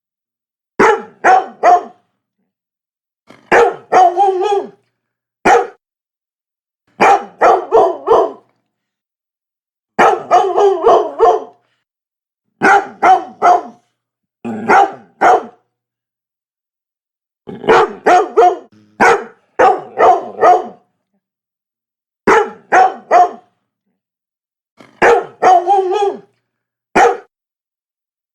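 Labrador retriever barking in short bursts of one to five sharp barks, a burst every two to three seconds, with clean silence between them.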